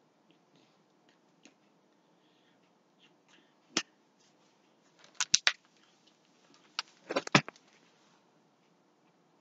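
A few sharp taps and slaps of hands meeting during sign language: one a little before four seconds, then three in quick succession about five seconds in. A louder cluster of knocks near seven seconds as a hardcover picture book is picked up and swung open.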